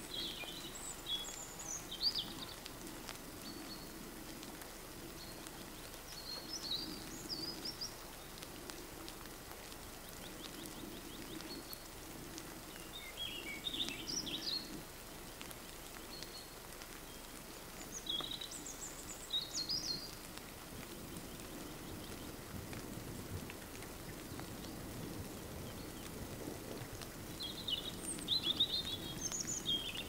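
A songbird singing short phrases of high notes, one about every five or six seconds, over a steady background patter of water drops after a storm.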